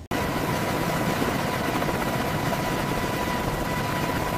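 Helicopter turbine engines running at ground idle during an engine run-up: a steady roar with a constant high whine, cutting in abruptly at the start.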